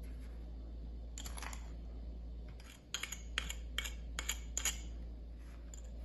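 A metal spoon scraping and clicking as it spreads a white paste onto a roll of toilet paper. There is a short scrape a little after a second in, then about six quick clicks over the next two seconds, over a low steady hum.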